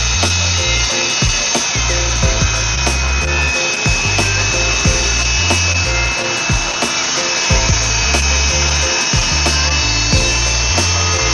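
Background music with a stepping bass line and a steady drum beat.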